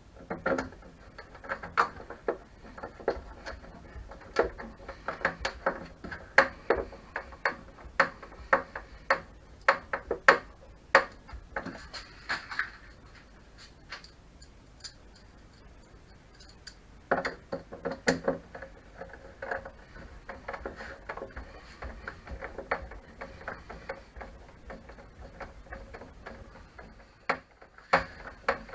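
Irregular clicks and taps of a screwdriver turning long screws into the plastic casing of a Tacx Flux smart trainer, with a quieter pause midway.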